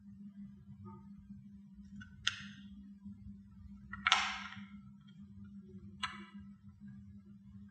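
Screwdriver working the screws of a small plastic device's back cover: three short sharp clicks and scrapes of metal on plastic, the middle one loudest, over a steady low hum.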